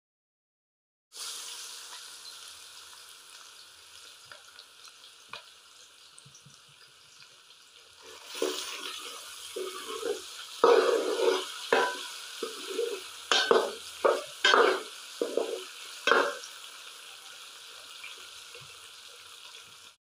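Diced potatoes sizzling in hot oil in a steel pan, starting about a second in. From about eight seconds in, a metal ladle stirs them, scraping against the pan in a run of loud strokes for several seconds.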